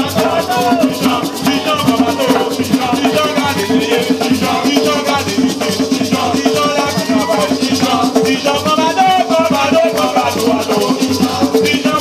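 Gwoka music played live: ka hand drums beating a steady rhythm under a rattling calabash shaker (chacha), with voices singing over it.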